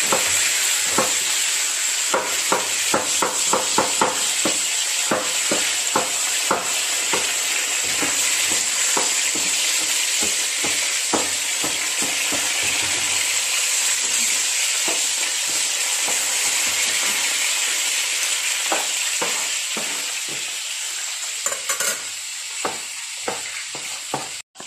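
Oil sizzling steadily in a frying pan as shrimp fritters (okoy) fry, with a knife chopping onion on a cutting board in short uneven strokes, a few a second.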